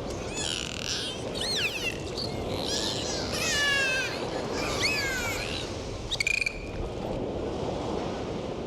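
Dolphins whistling: a series of rising and falling whistles, with a brief burst of clicks about six seconds in, over a steady wash of sea noise.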